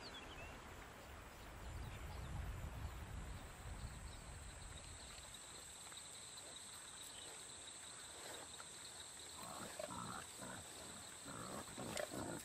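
A herd of peccaries grunting in short, repeated bursts, starting about three-quarters of the way in, over a steady high whine of night insects. A low rumble fills the first few seconds.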